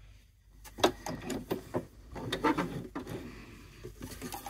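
Irregular light clicks and knocks with fabric rustling as freshly sewn patchwork squares are drawn out from under a sewing machine's presser foot after a seam. The sounds start about half a second in.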